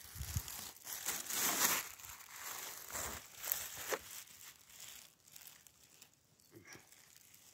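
Close crinkling and rustling noise, loudest in the first two seconds and fading out after about four seconds.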